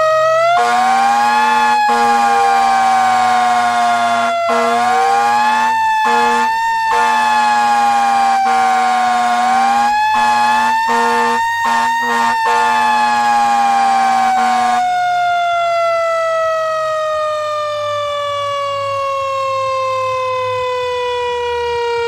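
Siren wailing, its pitch rising and falling in slow sweeps with a few brief breaks, then winding down in one long falling tone from about fifteen seconds in. A steady lower tone sounds beneath it until the wind-down begins.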